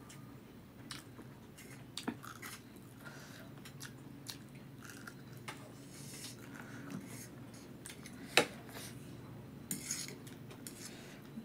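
Close-up eating sounds: chewing and biting on chow mein noodles, with scattered clicks of a metal fork and spoon against the plate. One sharp clink stands out about eight seconds in.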